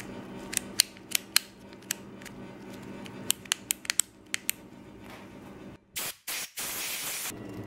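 A dozen or so sharp little clicks from the plastic handlebar switch housing being handled, then aerosol spray hissing through a straw nozzle onto the switch contacts in three bursts, two short and one longer, that cuts off sharply.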